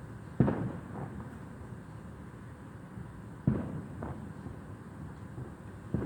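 Two firework bangs about three seconds apart, each followed by an echo about half a second later, with a third bang starting at the very end.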